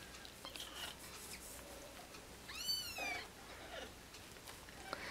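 A 17-day-old Persian kitten mews once, a high, thin cry that rises and falls, about two and a half seconds in, with a few fainter squeaks before it. The kittens cry like this at the nipple, which the breeder puts down to not getting enough milk.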